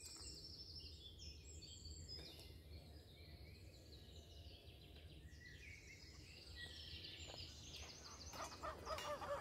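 Faint songbirds chirping and singing in many short, high notes over a low steady rumble, with music starting near the end.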